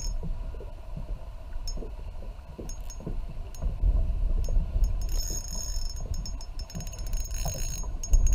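Wind buffeting the camera microphone as an uneven low rumble, with scattered light clicks and a thin high whine that becomes steady from about halfway.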